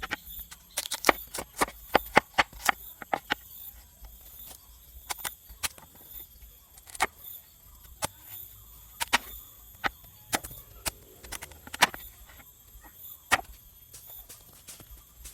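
Irregular sharp knocks of wood being struck or chopped, some in quick pairs, thinning out after the first few seconds, over a faint steady high-pitched hum.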